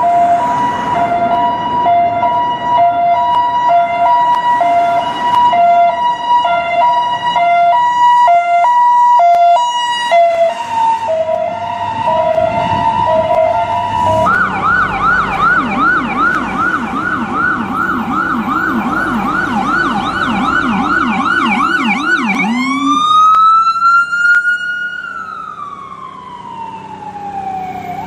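American ambulance siren running through its tones: a hi-lo two-tone alternation for about the first half, then a fast yelp of quick rising sweeps, then a slow wail that rises and falls near the end.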